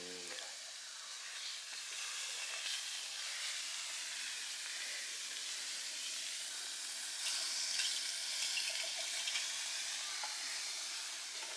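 A steady, even hiss, a little louder from about seven seconds in.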